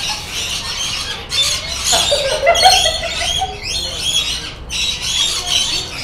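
Rainbow lorikeets screeching and chattering, many shrill calls overlapping without a break.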